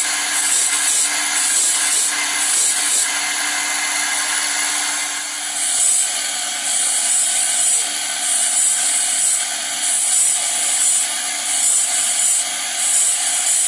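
Belt-driven grinding wheel sharpening the teeth of a band saw blade as it is fed past by hand: a steady motor hum under a high-pitched grinding rasp that comes in short spells about once or twice a second, easing off for a couple of seconds around the middle.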